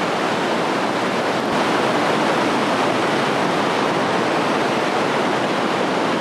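Steady rushing of the Reka river's white-water rapids at the bottom of a deep underground canyon.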